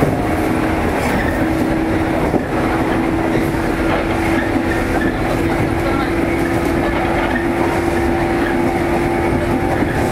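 JR East 115-series electric train running, with a steady hum throughout and a single knock about two seconds in.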